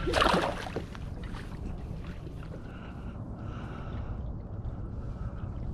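A small boat under way across the bay, its motor running steadily with a low rumble. A short rush of wind or spray noise comes in the first second.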